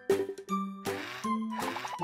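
Cartoon background music: a melody of short, separate pitched notes, a couple a second.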